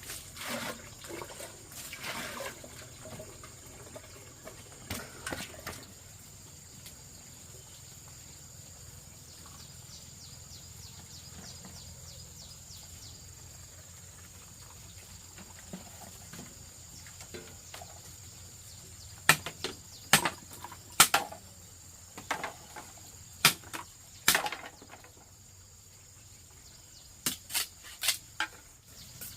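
Insects droning steadily at a high pitch, with scattered sharp knocks and clacks that come in clusters in the second half.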